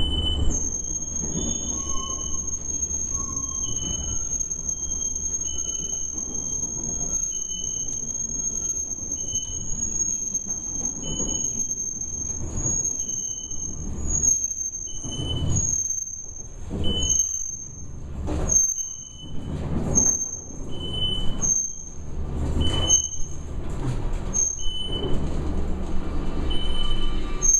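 Elevator car running in its shaft: a steady high-pitched whine over a low rumble, with a second, lower steady tone. From about halfway, a rhythmic whoosh comes about every second and a half.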